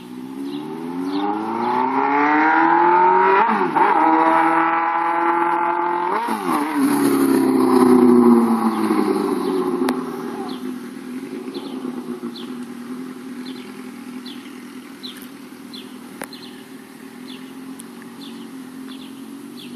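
Suzuki GSX-R sport bike's inline-four engine with no exhaust fitted, revving up hard through the gears with two upshifts about 3.5 and 6 seconds in. It is loudest around 8 seconds, then drops in pitch and fades to a distant steady drone.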